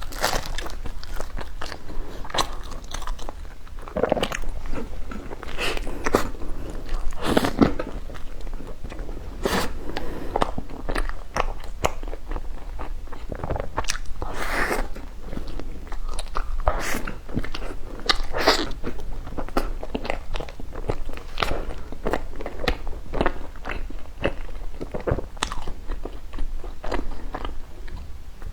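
A person biting and chewing a bread puff close to the microphone, with crunching bites and many small mouth clicks.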